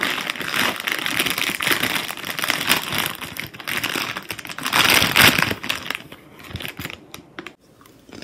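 A foil bag of chips crinkling as it is grabbed and handled, a dense crackly rustle that eases off near the end.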